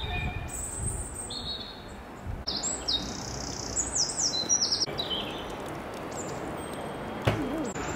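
A small songbird singing in short series of high, thin notes, over the steady rush of flowing river water. A brief knock near the end.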